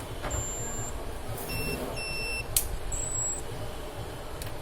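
Short high electronic beeps, a few separate tones, with a sharp click about two and a half seconds in, over a low steady rumble.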